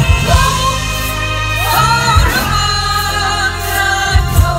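Live band performing a song while singers carry the melody, with a steady bass and a few sharp drum hits.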